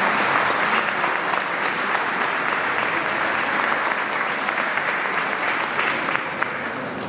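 Audience applauding in a hall, a dense steady patter of many handclaps that eases off slightly near the end.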